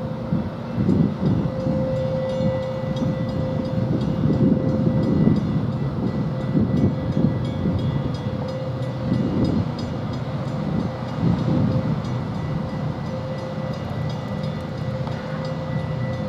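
Wisconsin and Southern diesel freight locomotives notching up from a standstill, their engines running under load with a deep drone and a steady whine over it, swelling louder every couple of seconds.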